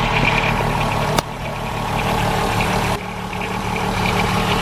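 VW Golf 4's 2.8-litre VR6 engine idling with a light, fast ticking rattle, which the owner puts down to a worn timing chain that is still mild with the engine not yet fully warm. One sharp click about a second in.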